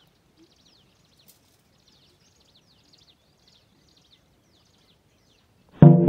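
Faint birdsong outdoors: short downward-sliding chirps repeated every second or so. Near the end, loud music with a steady beat cuts in abruptly and drowns it.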